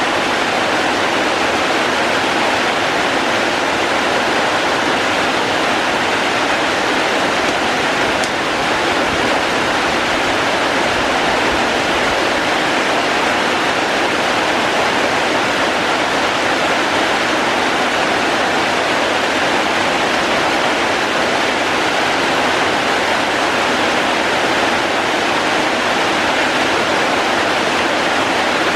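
Steady, even rush of falling water, a dense hiss with no separate drops standing out.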